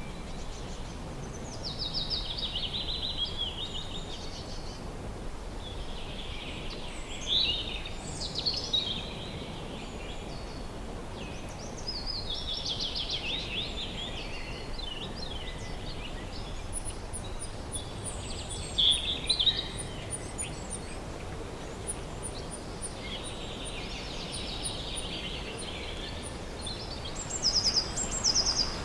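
Wild songbirds singing in spring, a warbling phrase every few seconds, with a thin series of very high short notes in the second half. Steady low background noise underneath.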